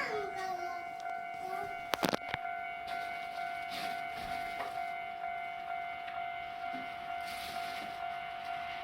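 Level-crossing warning bell ringing steadily as a train approaches the crossing, heard as one held tone with overtones. A sharp knock sounds about two seconds in.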